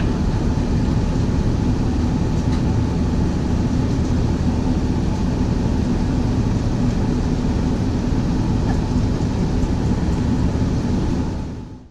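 Airbus A380 passenger-cabin noise: a steady rumble of engines and airflow with a faint hum, fading out near the end.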